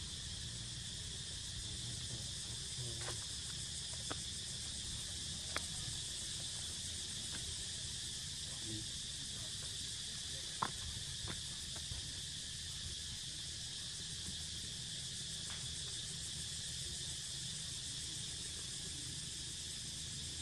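Steady high insect drone, with a low rumble underneath and a few faint sharp clicks scattered through it.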